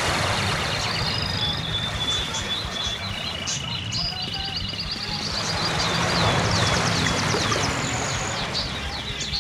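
River water rushing steadily over rocks, with birds chirping in short high calls and quick trills above it.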